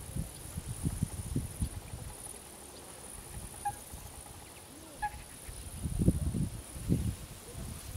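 Insects chirring steadily and high-pitched. Low muffled rumbles and bumps come and go in the first two seconds and are loudest near the end, with two brief high chirps in the middle.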